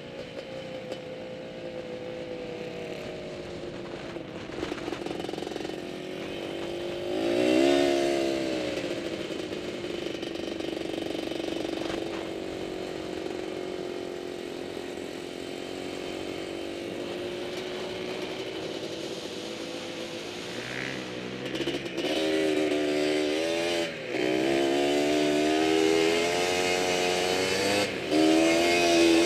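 Quad (ATV) engine heard from the riding machine itself, running in the sand: it eases to a low, steady run, revs up and back down briefly about 7 to 8 seconds in, and holds a steady cruise. From about 22 seconds in it runs louder and higher under more throttle, with two short lifts off the gas.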